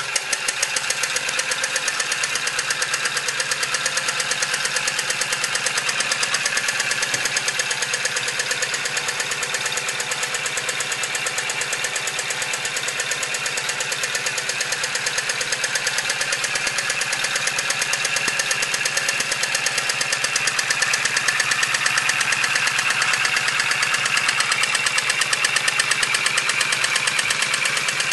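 Model vertical twin-cylinder steam engine running on compressed air, its rapid, even exhaust beats loud and steady as it drives a 5-inch boat propeller. The beats grow a little louder about two-thirds of the way through.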